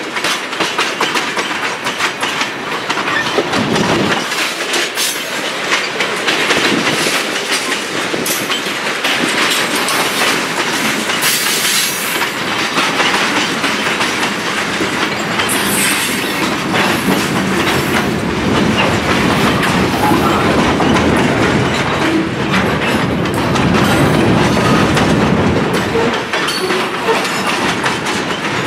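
Freight train tank cars and covered hoppers rolling past, loud and steady. The wheels click rhythmically over the rail joints.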